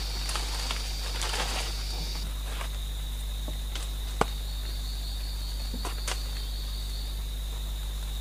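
Steady high-pitched insect drone, with rustling of leaves and undergrowth and a sharp snap about four seconds in as vines and branches are pulled and broken.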